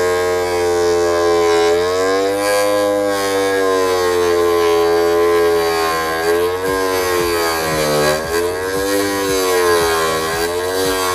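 Homemade 12-volt DC motor table grinder running with a steady pitched hum. In the second half its pitch dips about four times with some scraping clicks, as a small piece of PVC is pushed into the blade and the motor slows under the cutting load.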